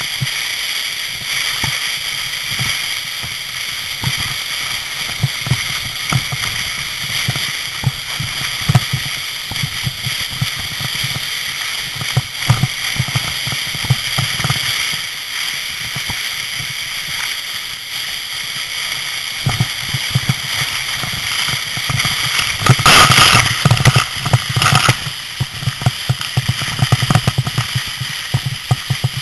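Wind buffeting the camera microphone in blowing snow: a steady hiss with an uneven, gusting low rumble, and a louder burst about three-quarters of the way through.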